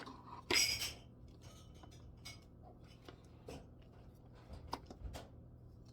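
Plastic trimmer guard being handled and fitted onto the tool's shaft by hand: a loud scraping rustle about half a second in, then a few light clicks and taps as the parts are pushed together and their screw holes fail to line up.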